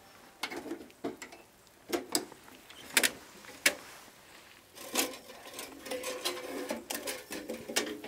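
Light metal knocks and clinks as the lid and packed parts of a homemade steel ammo-box wood stove are handled. Scattered sharp clicks come through the first few seconds, then from about five seconds in a denser run of metal sliding and scraping.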